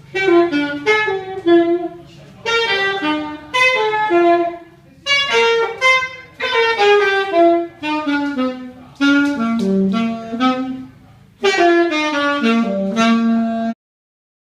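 Solo saxophone playing short jazz-like phrases of stepping-down notes with brief pauses between them, stopping abruptly near the end.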